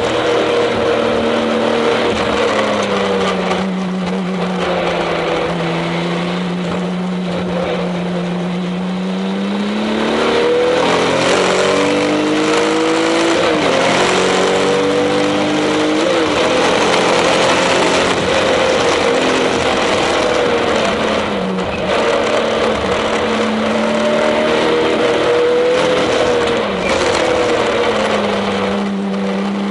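Turbocharged flat-six engine of a Porsche 996 TurboCup Spezial, heard from inside the cabin, running hard on track. The note sits low and steady for several seconds, climbs in stepped rises broken by short drops in the middle, holds a higher pitch, then falls low again near the end.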